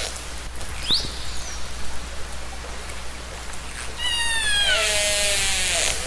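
Killer whale (orca) calls over a steady underwater hiss. A short rising whistle comes about a second in. Near four seconds in there is a longer falling call with several stacked tones, which runs into lower wavering tones near the end.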